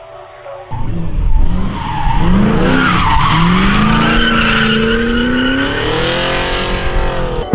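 Nissan 240SX (S14) drift car sliding through a corner: engine revs rising and falling with the throttle while the rear tyres squeal and skid. The car sound starts abruptly under a second in, after faint music.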